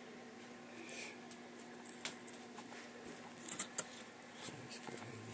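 Faint, scattered ticks and scratches of a small feeder rat scrabbling over coco husk chips in a plastic tub, with a short cluster of them past the middle. A faint steady hum sits underneath.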